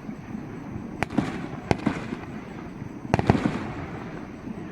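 Aerial fireworks shells bursting in the distance: a series of sharp bangs, with a tight cluster about three seconds in, each trailed by an echo off the bluff rocks beside the river.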